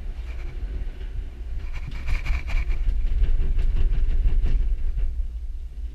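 Gondola cabin rumbling and rattling as it leaves the station and swings out onto the cable, with a quick run of rapid clacks from about two seconds in to near the end as the cabin passes through the station's wheels and onto the rope.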